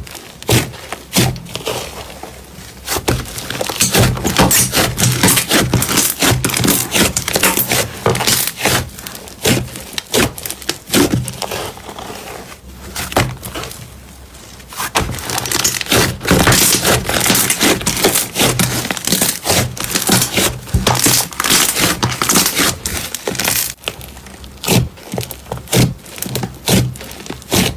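Crunchy slime being squeezed and pressed by hand, giving bursts of dense crackling and popping, with quieter spells around 2–3 s, 10–14 s and 24 s between handfuls.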